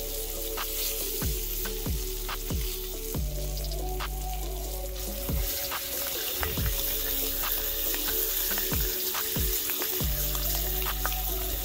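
Fish fillets frying in butter in a cast-iron skillet over a campfire, giving a steady sizzle, with background music over it.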